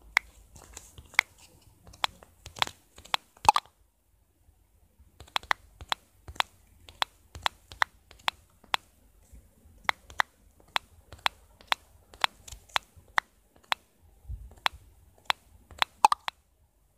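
A run of sharp, irregular clicks, a few a second, like taps on a phone's on-screen keyboard while typing messages, with a pause of about a second and a half near the start.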